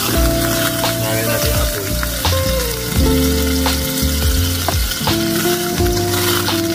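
Butter sizzling as it melts in a hot stainless steel frying pan, stirred with a metal spoon that clicks and scrapes against the pan, with background music underneath.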